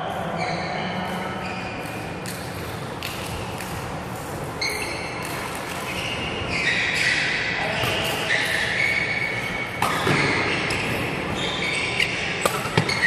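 Sports shoes squeaking in short, high chirps on a polished wooden badminton court, echoing in a large hall, with sharp racket strikes on the shuttlecock about ten seconds in and again near the end.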